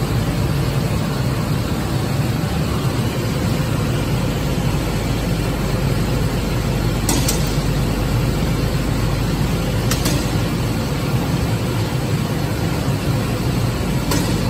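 Steady, loud drone of workshop machinery at a glass cutting table, with a few sharp snaps: scored glass sheets breaking apart along their cut lines, a pair about seven seconds in, one around ten seconds, and one near the end.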